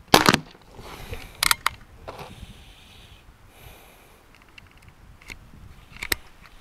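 Crosman 2240XL CO2 pellet pistol firing once with a sharp crack just after the start, followed by a few metallic clicks and handling noises as the single-shot bolt is worked to load the next pellet; the clicks are sharpest about a second and a half in and again near the end.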